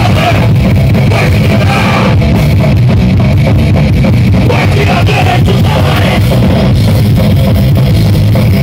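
Rock band playing loud and heavy: distorted electric guitars over a pounding drum kit, dense and without a break.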